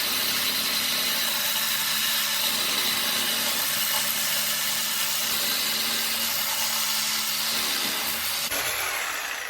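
Power saw blade cutting through a microwave magnetron, grinding steadily through its copper and a piece of steel inside, until the cut ends and the noise drops away near the end.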